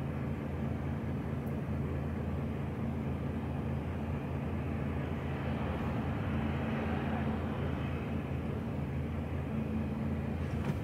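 HGV lorry's diesel engine idling steadily while the truck stands in traffic, heard from inside the cab as an even hum.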